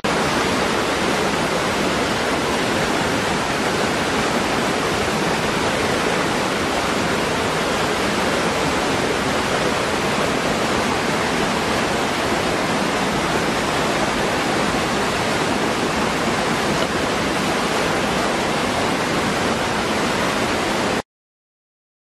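Waterfall pouring into a rocky pool: a steady, loud rush of falling water that cuts off suddenly near the end.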